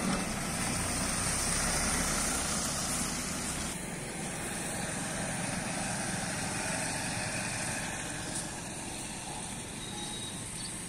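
Road traffic: a truck engine running as a bare truck chassis drives by, louder for the first few seconds, then a motorcycle passing.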